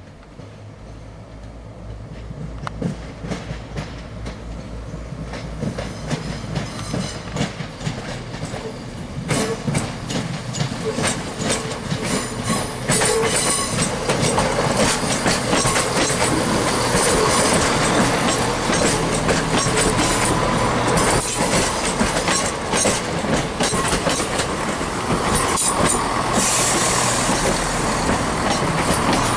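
Class 170 Turbostar diesel multiple unit drawing into the platform. Its underfloor diesel engines hum and its wheels click over rail joints and points, growing steadily louder as it comes alongside.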